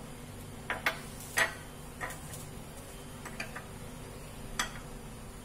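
A handful of light, scattered knocks and clinks of a wooden spatula handled against a small glass bowl on a stone countertop, the loudest about a second and a half in, over a faint steady hum.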